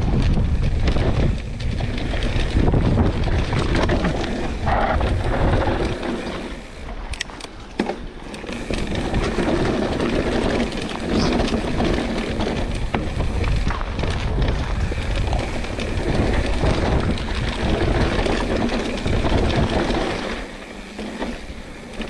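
Pivot Switchblade mountain bike descending a dry dirt trail at speed: knobby tyres rolling and skidding over dirt and stones, the bike rattling with sharp knocks over bumps, and wind buffeting the action-camera microphone.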